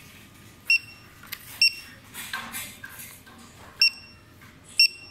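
Posunitech kiosk 2D barcode scanner module giving short high beeps, each one confirming a successful decode of a scanned barcode. It beeps four times: two beeps about a second apart near the start and two more about a second apart near the end.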